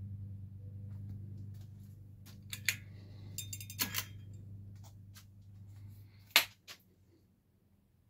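Worn-out Alaska ceiling fan running, its motor giving a steady low hum with scattered clicks and rattles. About six seconds in there is a sharp loud click, and the hum stops right after it.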